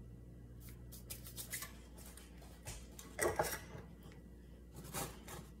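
Dry rustling and rubbing as red pepper flakes are crumbled between the fingers and sprinkled over frying eggs, with two louder brief rustles about three and five seconds in.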